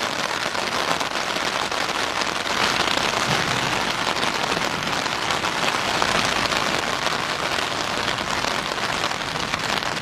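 Heavy rain falling steadily, a dense, even patter of drops on surfaces.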